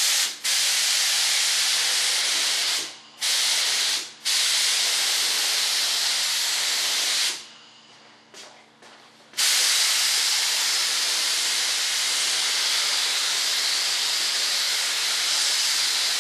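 Compressed-air spray gun hissing in long bursts, cut off sharply several times as the trigger is let go, once for about two seconds, while thin coats are sprayed onto a fibreglass part.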